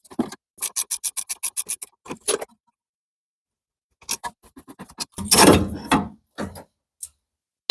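Ratchet spanner clicking quickly and evenly, about eight clicks a second, as a caliper bolt is undone. After a short pause come a few more clicks and a louder clatter.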